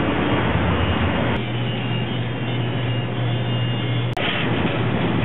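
Steady ambient rumble and hiss with a low hum. It shifts about a second and a half in, when the hiss thins and the hum grows. Near the end it breaks off for an instant.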